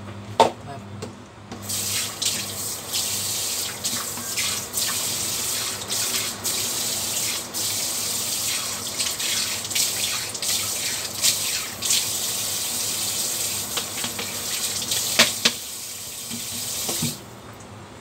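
Kitchen tap running into the sink for about fifteen seconds, with splashes and clatters of things being handled under the stream. A sharp knock comes just before the water starts, and a louder double clatter comes shortly before it is turned off.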